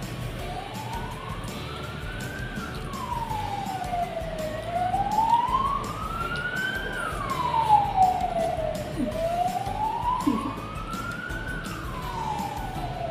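A siren wailing, its pitch rising and falling slowly, about one full rise and fall every four to five seconds.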